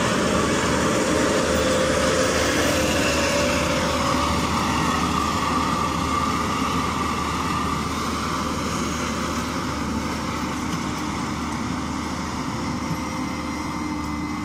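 A Case IH self-propelled windrower runs steadily while mowing grass with its HDX header, the engine and cutting header making a continuous mechanical drone with a few steady tones. It passes close and then moves away, growing gradually fainter.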